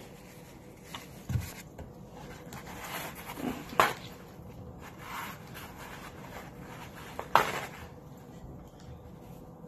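Quiet handling sounds at a table: a few sharp taps or knocks, the loudest about four and seven seconds in, with soft rustling of paper towel being pulled from a roll.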